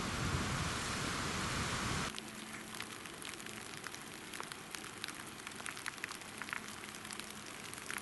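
A steady hiss for about two seconds, then, after a sudden drop, light rain in the forest: scattered drops ticking on wet leaves over a soft hiss.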